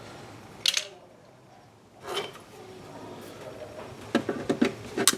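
Clicks, knocks and light clatter as brittle plastic retaining clips are prised out of a Nissan Navara D22's underbody guard. There are a couple of single knocks, then a quick run of clicks about four seconds in.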